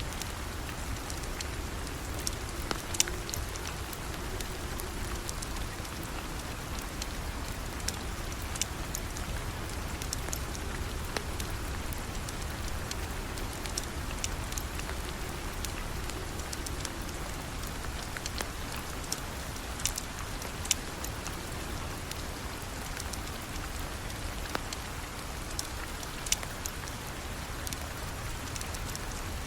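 Steady rain falling, an even hiss with a low rumble underneath, with a sharp click every few seconds.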